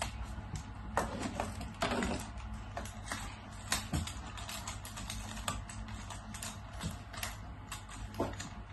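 Lightweight tripod being unfolded and its legs extended: irregular clicks, knocks and rattles of the leg tubes and their flip-lock height clips.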